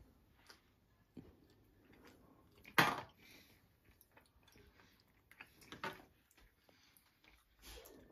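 Scattered quiet clicks and knocks of plates and forks being handled on a kitchen worktop, with one sharp, louder knock about three seconds in, and some quiet chewing.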